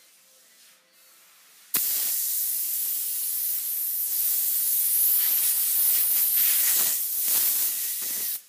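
A loud, steady hiss of rushing air that starts suddenly about two seconds in, wavers a little in strength, and cuts off suddenly near the end.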